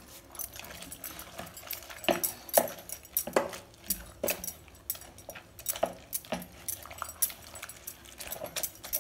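Wooden churner (mathu) mashing cooked amaranth greens in a pressure-cooker pot: irregular wet knocks and clinks against the pot, a few each second.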